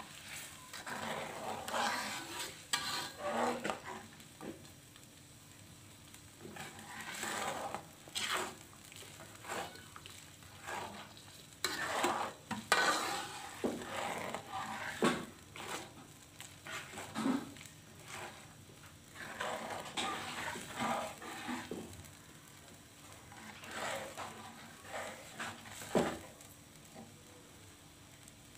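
A metal spatula scrapes and stirs around a metal wok as a blended chili spice paste fries in oil. The strokes come in uneven runs with short pauses between them, over a soft sizzle.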